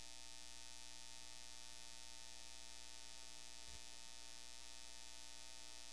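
Steady electrical mains hum with many even overtones and a faint hiss, unchanging throughout.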